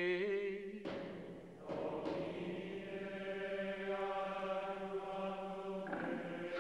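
Latin plainchant at Vespers: a sung intonation with a wavering pitch ends about a second in, then a chanted response is held on one steady note for about four seconds, over a steady low tone.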